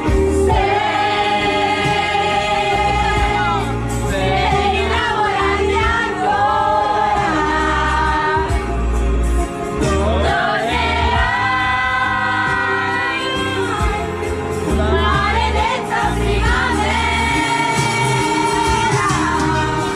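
Background pop song with long held, wordless sung notes in layered vocals over a steady bass.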